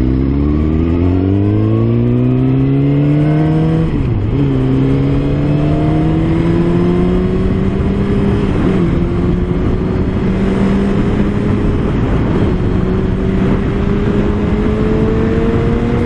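2015 Suzuki GSX-R1000's inline-four engine accelerating up through the gears. The pitch climbs steeply, drops at gear changes about four and about nine seconds in, then rises slowly, with wind noise on the microphone.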